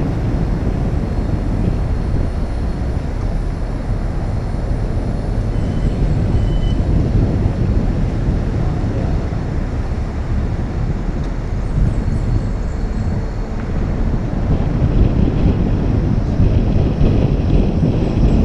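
Steady road and wind noise from a moving vehicle, heaviest in the low end, growing a little louder over the last few seconds.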